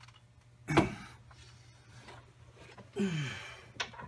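Hand work with metal parts while a new water pump is fitted to the engine: one sharp metal knock about a second in, then near the end a short scraping sound that falls in pitch, followed by a click.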